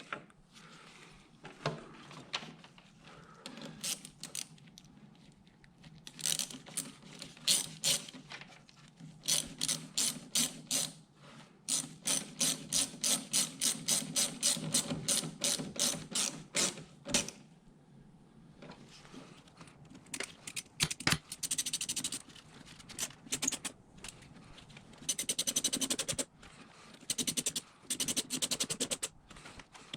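Ratchet wrench clicking in bursts: a few slow strokes, then a steady run of about two strokes a second, and near the end a quick spell of rapid clicking.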